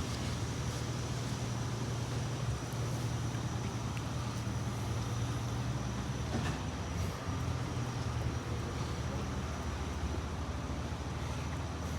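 An engine running steadily at constant speed, a continuous low drone.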